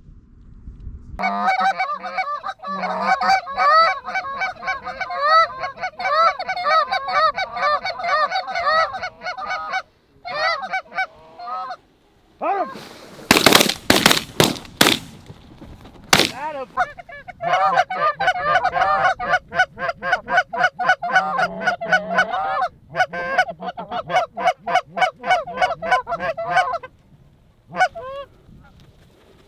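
Geese honking in a fast, continuous run, then a volley of about five shotgun blasts in quick succession about halfway through and one more shot a second later, then more rapid goose honking.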